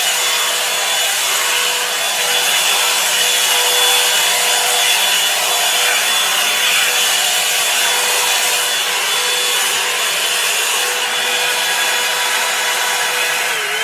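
Revlon hair dryer brush running steadily, a rushing of air with a steady whine from its motor, as it is worked through hair. At the very end it is switched off and the whine falls in pitch as the motor spins down.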